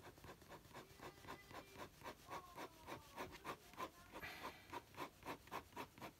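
Pen nib scratching on paper in quick, even short strokes, about five a second: lines being cross-hatched by hand. Faint.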